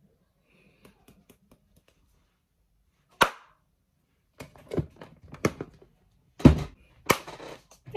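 Handling noises while hair is being styled: scattered faint clicks, one sharp click about three seconds in, then a run of short knocks and rustles near the end.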